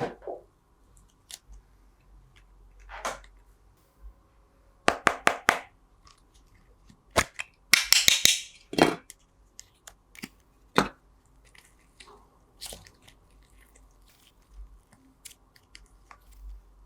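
Slime being squeezed and poked, giving sharp crackling pops and clicks with quiet gaps between them. The loudest clusters come about five seconds in and again around eight to nine seconds in.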